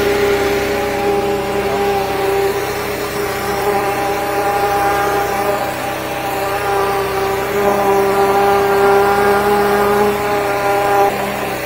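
The 13-horsepower engine of a high-pressure sewer jetter running at a steady pitch while it drives water through the drain line.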